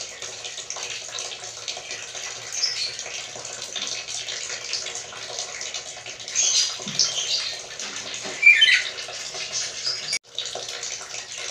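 Black-capped lory giving a few short squeaky calls, the loudest about eight and a half seconds in, over a steady hiss.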